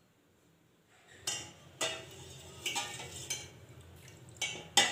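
Steel ladle stirring milk in a stainless steel pot as it heats, clinking against the pot about six times from about a second in, over a low steady hum.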